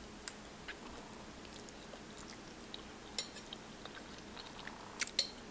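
Person quietly chewing a bite of smothered turkey wing, with small wet mouth clicks and a few sharper clicks near the end.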